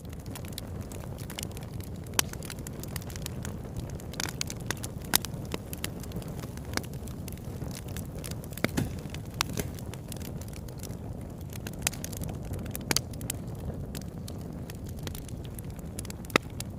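Campfire burning: wood crackling and snapping in quick irregular clicks, with a few louder pops, over a steady low rumble.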